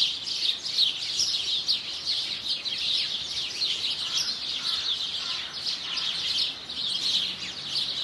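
A dense chorus of small songbirds chirping and twittering, with many quick, high chirps overlapping without a break.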